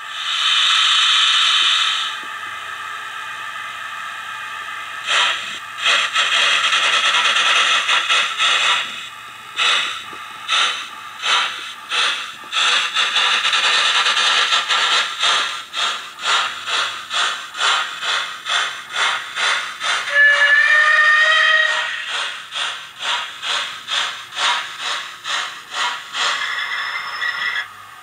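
Howes of Oxford sound decoder in a Hornby OO-gauge 'Merchant Navy' model locomotive, played through a bass-enhanced speaker: a loud blow of steam hiss at the start, then steam exhaust chuffs beginning about five seconds in and quickening as the locomotive pulls away. A whistle sounds briefly about twenty seconds in.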